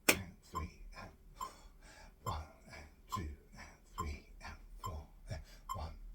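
A person coughing and making throat noises over and over, in short separate bursts, with a sharp, loud cough at the very start.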